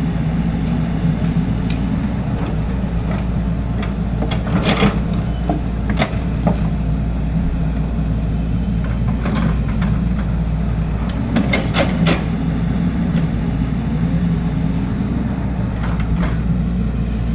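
Hydraulic excavator's diesel engine running steadily under digging load, with a few sharp metallic knocks about five, six and twelve seconds in.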